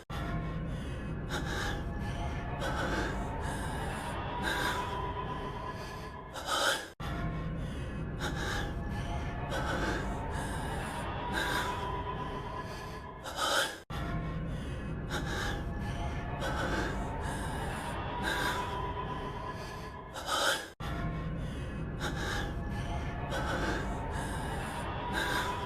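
An anime character's heavy breathing, male voice, with a gasping breath every second or two over a faint music bed. The same short clip loops about every seven seconds, each time breaking off abruptly before it restarts.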